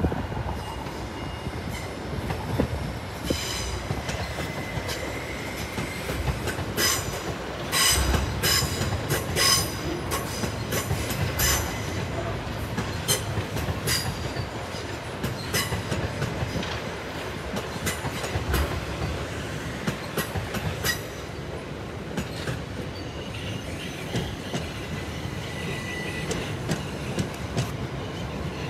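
A passenger train running over the station's pointwork: a steady rumble of wheels on rails, with short, repeated wheel squeals through the switches and crossings, thickest in the first half.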